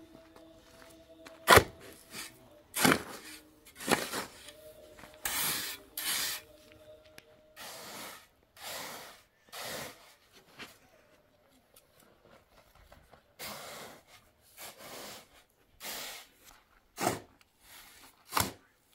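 Steel shovel scooping and turning a heap of sand and cement: a run of short gritty scrapes, with a few sharp clanks of the blade, the loudest about a second and a half in.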